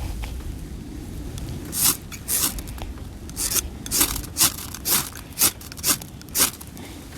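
A fire starter struck again and again against wet tinder: about ten sharp scrapes, roughly two a second, starting about two seconds in.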